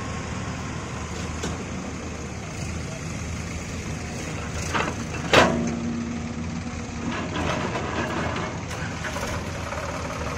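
Diesel engines of a Sonalika Tiger 50 DI tractor and a JCB excavator running steadily while the excavator works. About five seconds in comes one sharp, loud knock, followed by a short steady tone.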